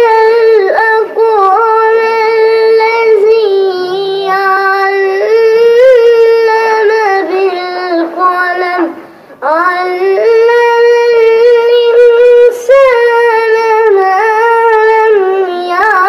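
A boy's voice chanting melodic Quran recitation (tajweed) in long, held phrases, with one break for breath about nine seconds in.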